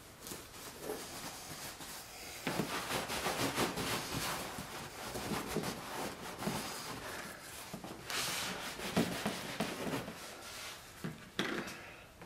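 Paper towel rustling and rubbing over freshly dyed, tooled leather in irregular wiping strokes, with a brighter stretch of crumpling about eight seconds in and a few light knocks near the end.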